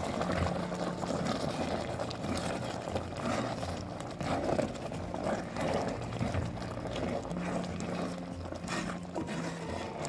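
Thick ambarella chutney syrup bubbling and spluttering as it simmers in a pot, stirred with a wooden spoon.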